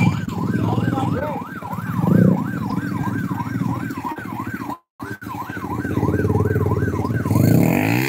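An emergency siren yelping, its pitch sweeping up and down about three times a second, over the low running of vehicle engines. The sound cuts out for a moment about five seconds in.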